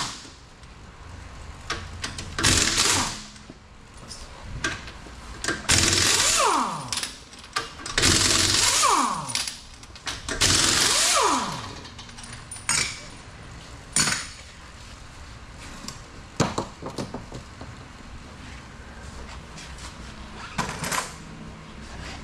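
Impact wrench loosening wheel lug bolts in four short runs, three of them ending in a falling whine as the tool spins down. A few sharp metal knocks follow.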